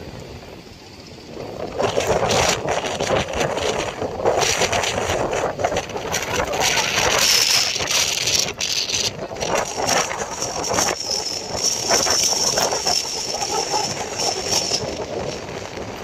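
Engines of outrigger fishing boats running as the boats head out through the surf. The noise jumps up about two seconds in and a high steady whine joins it from about seven seconds in.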